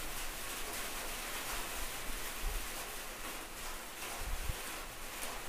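Wire hand whisk stirring thick semolina batter in a plastic bowl: a steady scratchy rustling, with two soft low thuds.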